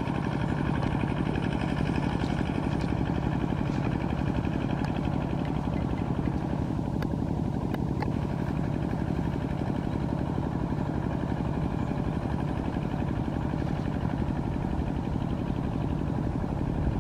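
Kubota RT120 walk-behind tractor's single-cylinder diesel engine running steadily under load, pulling cage wheels and a levelling board through flooded paddy mud.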